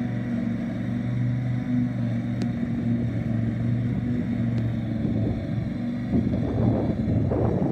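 Husqvarna ride-on mower running steadily under load as it cuts, its engine and blades making a low steady hum. A crackling noise joins near the end.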